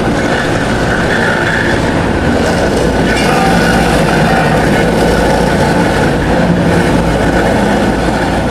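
Steady, loud mechanical rumble of a heavy vehicle running, starting abruptly and fading out at the end.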